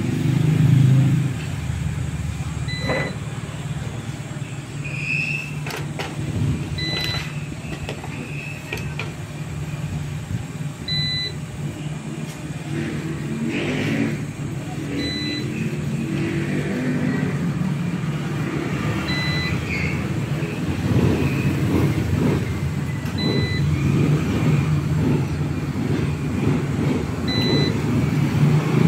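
Epson ink-tank inkjet printer printing a test page, its print head carriage shuttling back and forth over a steady low rumble that grows busier in the second half. A short, two-pitched beep repeats about every four seconds.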